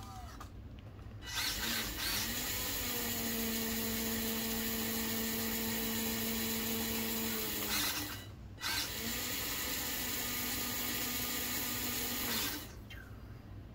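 Small electric-driven hydraulic pump of a model excavator running under load while the boom hydraulic cylinders move: a steady mechanical whine with a gritty drone. It winds up, runs for about six and a half seconds, stops briefly, then runs again for about four seconds.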